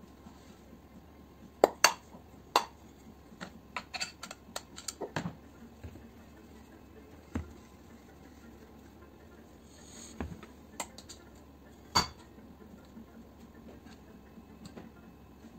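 Metal clinks and knocks as an aluminium pressure-washer motor housing and hand tools are handled on a workbench. Irregular sharp taps come in ones and small clusters, the loudest about two seconds in and again near twelve seconds.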